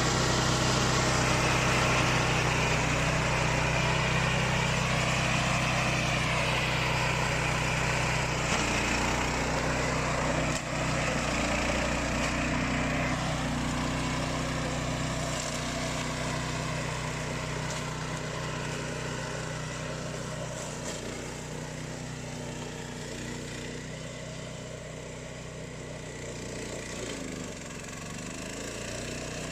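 Remote-control flail mower's engine running steadily, gradually fading as the machine moves away, with shifts in pitch about a third of the way in and near the end.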